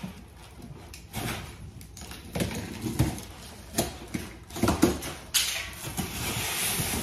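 A large cardboard furniture box being opened and handled: a scattering of knocks and taps, then scraping and rustling of cardboard from about five seconds in.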